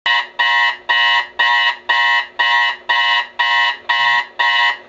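Digital alarm clock beeping in a steady repeating pattern, about two beeps a second.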